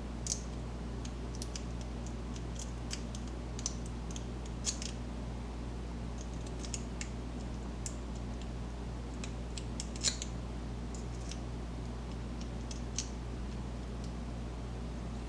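Lock picks and a tension tool working in the keyway of an American Lock Series 5200 padlock: faint, irregular metallic clicks and scratches, the loudest about ten seconds in, over a steady low hum.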